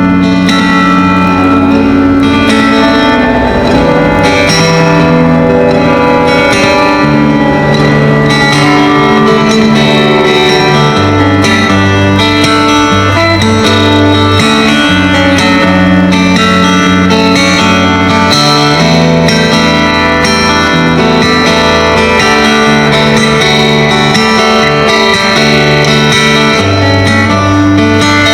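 Solo fingerstyle guitar playing an instrumental piece, with a bass line of held low notes under a picked melody and regular percussive strokes.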